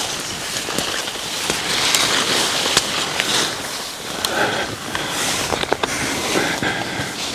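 Footsteps pushing through dry brush, with many sharp twig crackles and rustling.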